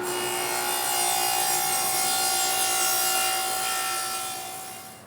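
Table saw with a 3/4-inch dado blade set running and cutting a dado through a wooden jig base. The steady run of the blade with a whining tone fades away near the end as the saw is shut off.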